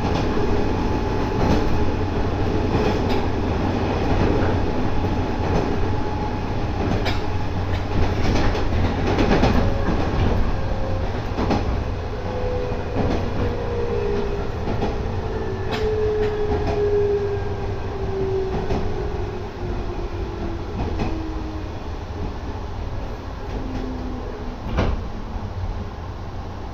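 Running noise inside a JR 213 series electric motor car: a steady low rumble with sharp wheel clicks over rail joints, and a traction motor whine that falls steadily in pitch during the second half as the train slows for its station stop.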